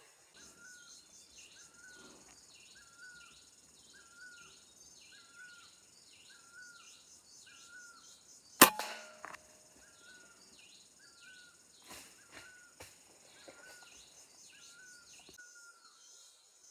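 A single sharp shot from an air rifle about halfway through, the loudest sound, with a short ring after it and a few faint clicks later. Underneath, a faint chirping call repeats about every two-thirds of a second.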